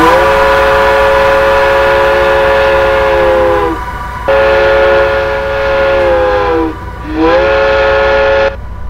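Multi-note train horn sounding a chord in three blasts, one long and two shorter. Each blast sags in pitch as it dies away, and the last one bends up into pitch at its start. It is a train sound effect used as a sample in a synthesized piece.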